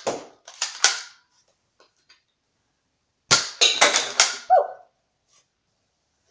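Spring-powered Nerf dart pistol being primed and fired: sharp plastic snaps and clacks in two clusters, the first right at the start and the second about three seconds in, followed by a brief squeak.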